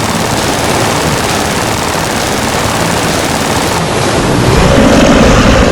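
A loud, steady rushing noise, like wind or a moving vehicle. About four seconds in it grows louder and deeper, as a vehicle engine comes up.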